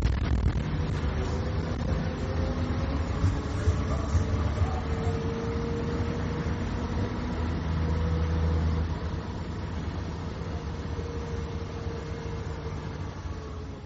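Mercedes-Benz O-500UA articulated bus's diesel engine running under way through its ZF automatic gearbox: a steady drone with a whine that drifts slowly in pitch. It eases off about nine seconds in.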